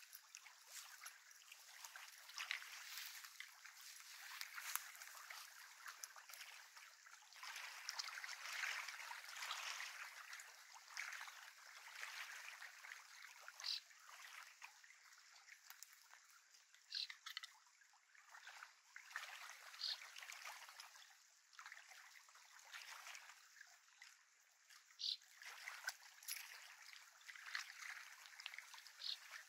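Faint, uneven lapping of small waves at a lakeshore, with a few short high chirps over it.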